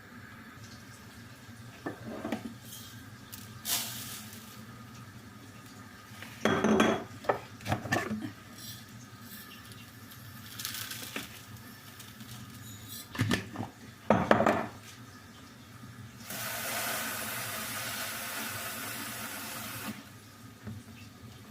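Dishes and kitchen utensils clattering and clinking in several short bursts. Near the end comes a steady rushing hiss lasting a few seconds.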